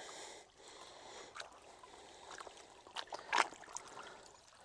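Water sloshing and splashing as the sluice mat is rinsed out to wash down the gold concentrates, with a few short splashes or knocks, the loudest about three and a half seconds in.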